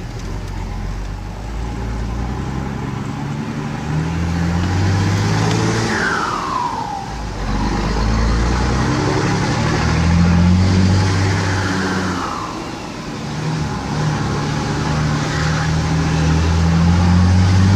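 Ford F-250 six-cylinder turbocharged engine pulling hard with a deep exhaust note, climbing in pitch through the gears. Twice, about six and twelve seconds in, the turbo's whistle falls away in pitch as the revs drop, the 'singing' that grows louder the more boost it builds.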